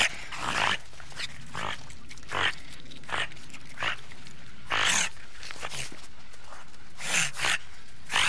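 An animal giving a series of about ten short, hoarse calls at irregular intervals, over steady background noise.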